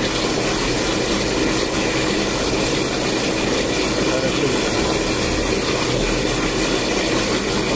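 DAB E.sybox booster pump running steadily under test, a constant mechanical hum and rush with a faint steady whine.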